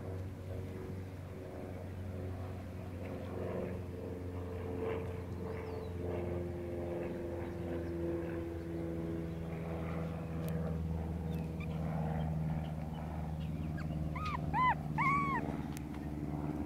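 Shih Tzu puppy giving three short, high cries that rise and fall in pitch, about two seconds before the end, over a steady engine hum in the background.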